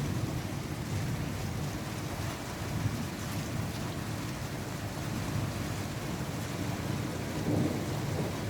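Rain falling steadily with a low rumble of thunder, swelling slightly near the end.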